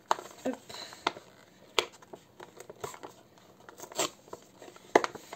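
Packaging of a boxed die-cast model car being worked open by hand: irregular clicks, crinkling and scraping, with the loudest snap about five seconds in.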